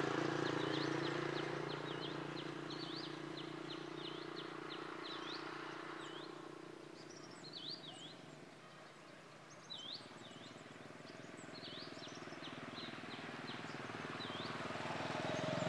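Motor scooter engine fading away as it rides off, with birds giving quick repeated chirps throughout. A second scooter's engine grows louder near the end as it approaches.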